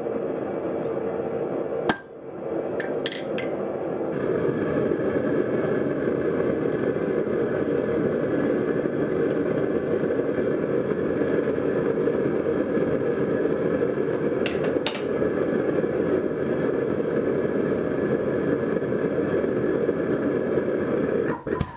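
Steady roar of a propane burner, with a few sharp metal clinks of pliers and hot steel about two and three seconds in and again near the middle. The roar cuts off suddenly near the end.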